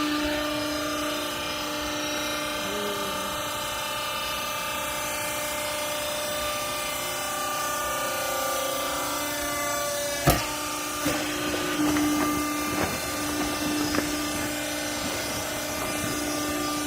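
A textile press baler's machinery running with a steady hum, with one loud metallic bang about ten seconds in and several lighter knocks over the following few seconds.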